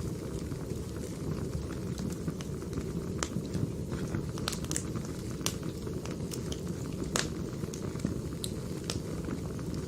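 Wood fire burning: a steady low rumble of flames with irregular sharp crackles and pops of the logs, the loudest pop about seven seconds in.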